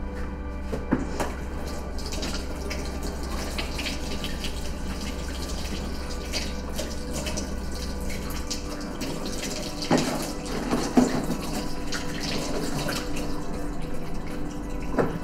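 Kitchen tap running water into a sink, with a few sharp clinks and knocks, the loudest about ten and eleven seconds in.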